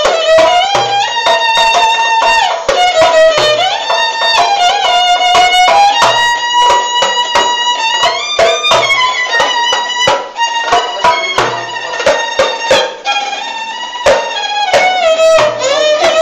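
Amateur violin and darbuka duo playing a Turkish melody. The violin carries the tune with sliding notes, over steady darbuka strokes. The music eases down for a few seconds past the middle.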